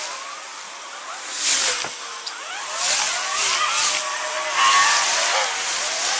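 Street traffic, seemingly sped up with the time lapse: cars pass in quick succession, the rush of tyres and engines swelling about three times, with many short gliding engine tones.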